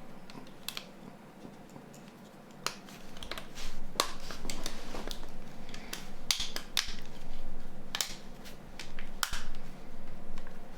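Small plastic parts of a Nokia C3-00 phone being handled and fitted by hand. Scattered sharp clicks with scraping and rustling between them start about two and a half seconds in.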